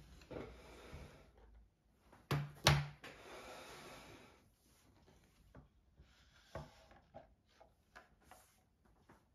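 Tableware and a tray being handled on a wooden table while a meal is cleared away: rubbing and rustling, two sharp knocks about two and a half seconds in, then scattered small clicks and knocks as the tray is lifted.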